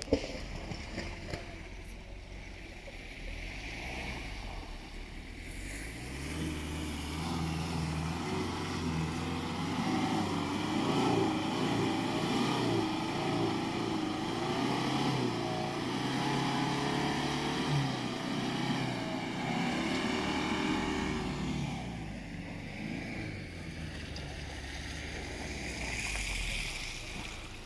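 A diesel 4x4's engine running and revving under load as it drives over muddy grass on street tyres, its revs rising and falling. It is loudest from about six seconds in until about twenty-two seconds, then eases off.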